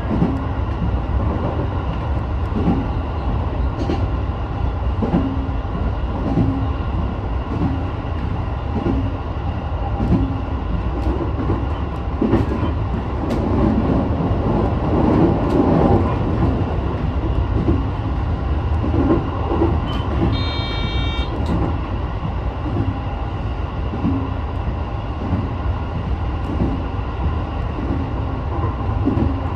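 Sotetsu 12000 series electric train running at speed, heard from the front of the train: a steady running rumble and hum with regular clickety-clack knocks of the wheels over rail joints. A short electronic beep sounds about two-thirds of the way through.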